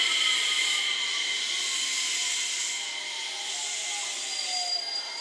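JR West 227 series electric train running away along the track and fading: a hissing rolling noise with a thin high whine that slowly falls in pitch.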